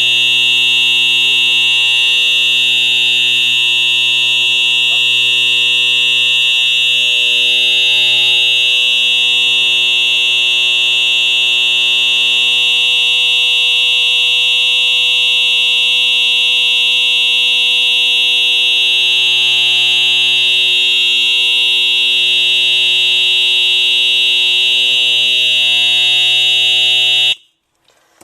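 A 1992 Wheelock EHS-DL1 fire alarm horn strobe sounding a loud, deep electronic buzz without a break. It cuts off suddenly about a second before the end.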